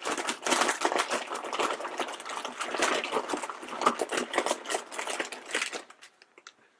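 Hands rummaging through a bin full of blind-bag packets: a dense, rapid run of rustling and clicking that stops about six seconds in.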